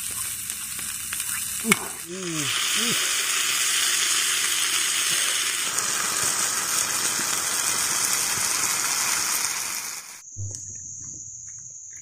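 Corn, vegetables and sardines frying in hot oil in a wok over a wood campfire: a loud steady sizzle that swells about two seconds in and drops away near the end. After it, a steady high insect trill, crickets.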